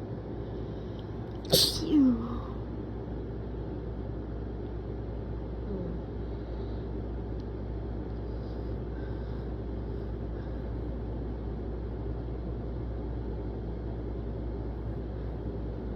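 A single sneeze about a second and a half in: a sharp burst followed by a short falling voiced tail. After it there is only a steady low hum and hiss.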